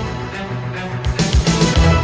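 Instrumental music with a steady beat and low drum hits.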